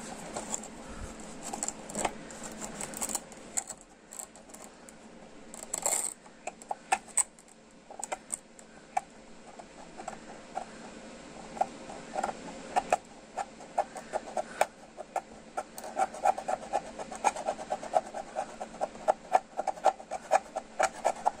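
Hobby knife blade scraping and picking at the edge of cured epoxy resin on a plastic headlight lens, testing whether the resin holds or lifts away. A run of small clicks and scratches, sparse at first and coming quicker and closer together in the second half.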